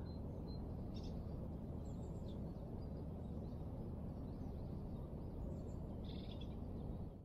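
Open-air background noise, a steady low rumble, with a few faint, short bird chirps scattered through it, the clearest near the end.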